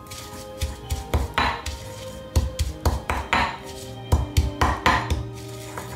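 Stone pestle pounding mint leaves and garlic with salt and oil in a stone mortar: repeated uneven knocks, about two or three a second.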